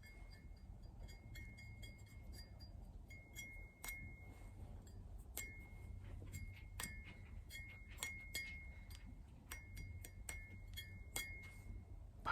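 Faint, irregular light metallic clinking: many small ticks, most followed by a brief ring at the same high pitch.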